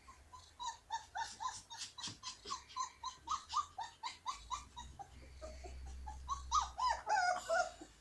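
Husky puppies' high yipping and whining calls while they play-fight, a quick run of short squeaky yips about four a second, then louder, wavering squeals near the end.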